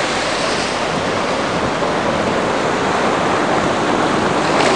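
A steady rushing water noise like surf or underwater bubbling, a sound effect laid under an animated logo card.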